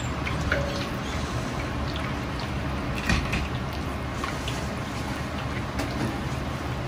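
Battered chicken pieces deep-frying in a wok of hot oil, sizzling and crackling steadily over a steady low rumble, with one louder crackle about three seconds in.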